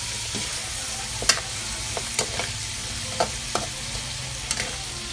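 Pork pieces sizzling in a steel wok, with a metal spatula stirring them and clinking against the pan at irregular moments, about eight times.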